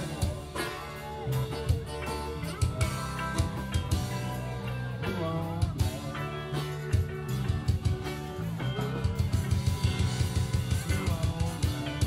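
Rock band playing electric guitar and drum kit, with a fast run of drum hits about two-thirds of the way through.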